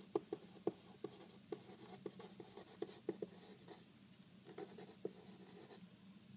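Pen writing on paper: irregular scratchy strokes and small sharp taps of the pen tip as words are written by hand.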